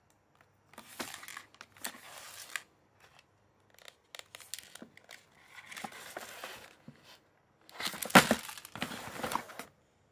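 Plastic shrink-wrap on instant yakisoba cup packages crinkling as the packages are handled, in three spells of rustling, the loudest about eight seconds in.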